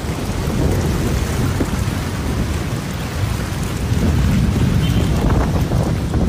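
Heavy thunderstorm downpour: dense, loud rain noise over a deep, continuous rumble.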